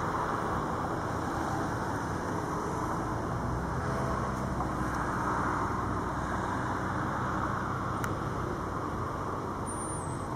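Steady drone of distant engines, with a faint click about eight seconds in.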